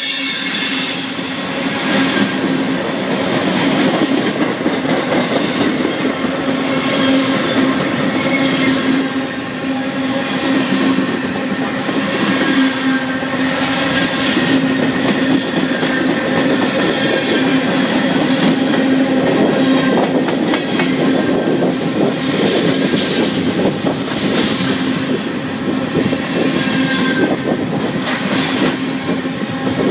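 A freight train's covered hoppers and tank cars rolling past close by: a steady, loud noise of steel wheels on the rails, with scattered clicks and a constant hum.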